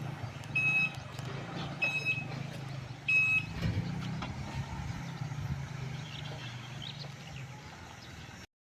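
An electronic beeper sounds three short high beeps about a second and a quarter apart, over a steady low hum. There is a low thump just after the third beep, and the hum runs on until the sound cuts off near the end.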